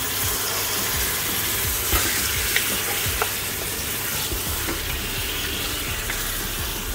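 Raw mutton pieces sizzling in hot oil with fried onions in an aluminium pressure cooker as they are stirred with a wooden spoon and browned. A steady frying hiss, with a few light clicks about two to three seconds in.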